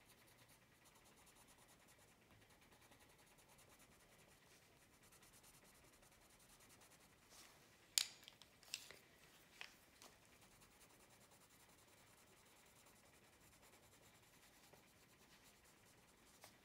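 Near silence with faint coloured-pencil strokes on paper; about eight seconds in, a handful of coloured pencils clacks together five or six times over about two seconds.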